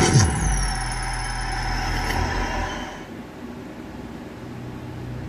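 Cinematic intro sound effects: a deep booming hit that drops in pitch, under a hissing whoosh with a high tone gliding down, fading out about three seconds in to leave a low steady hum.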